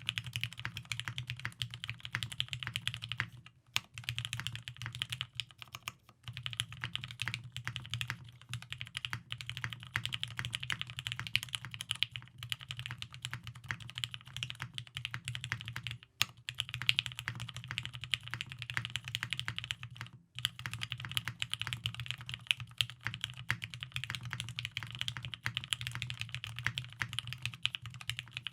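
Fast continuous typing on a TGR Jane V2 mechanical keyboard with lubed Tealios V2 linear switches, an aluminium plate and G81-3000SDU keycaps, with dense keystroke clicks and short pauses about 3.5, 6, 16 and 20 seconds in.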